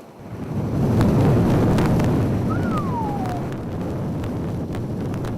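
Strong wind gust buffeting the microphone in a blizzard, rising suddenly into a loud, steady rumble. A short falling whistle sounds briefly in the middle.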